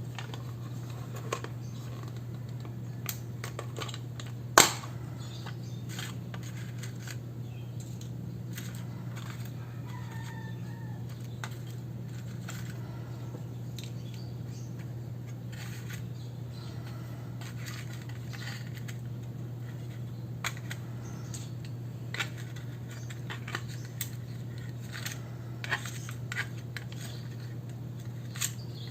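Small clicks and taps of journaling supplies being handled on a desk, scattered through, with one sharp click about four and a half seconds in, over a steady low hum.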